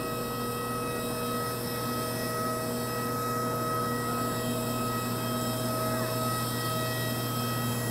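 Steady mechanical drone and whine from a parked airliner and its ground equipment on an airport apron, holding several constant tones without change.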